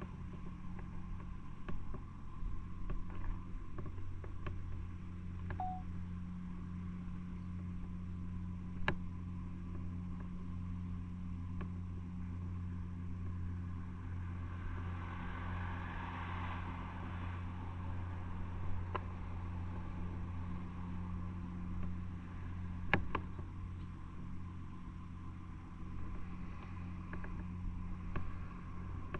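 Motorcycle engine idling steadily, with a few light clicks and one short beep about six seconds in.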